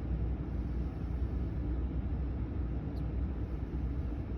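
HVAC blower air rushing steadily out of a 2019 Ram 1500's dashboard vent, with low rumbling buffeting as the air hits the microphone; the climate control is still blowing hot rather than adjusting to its set temperature. A faint click about three seconds in.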